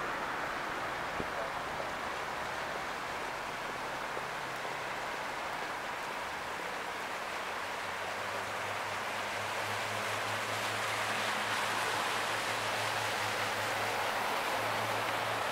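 A river cruise boat's engine running with a low steady drone that grows stronger about halfway through as the boat passes close, over a steady rushing hiss.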